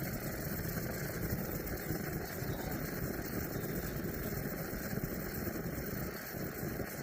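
Coleman 530 pocket stove, a pressurized liquid-fuel camp stove, burning with a steady, rumbling flame roar just after being lit.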